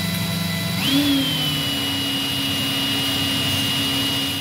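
Cordless drill motor running steadily, spinning a homemade magnetite-resin ferrite slug on a bolt against sandpaper to grind it down. About a second in, the motor's whine jumps up sharply and settles at a higher pitch.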